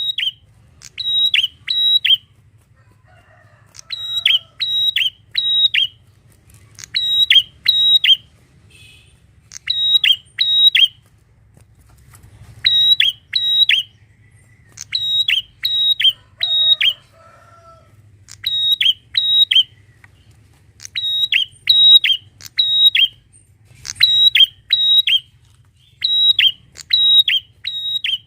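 Prenjak (prinia) calling loudly: sharp, high chirps repeated in quick runs of two to four notes, with short pauses between runs, over a faint low hum.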